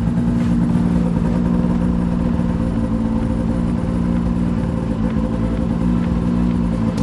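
Ski-Doo GSX snowmobile engine idling steadily and evenly, running cleanly on a fresh set of spark plugs after earlier running on one cylinder with a fouled plug.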